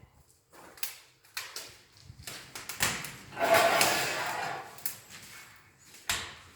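Wood fire burning in a fireplace's firebox insert, crackling with sharp, irregular pops. About three seconds in, a louder rushing noise rises and fades over a second or so.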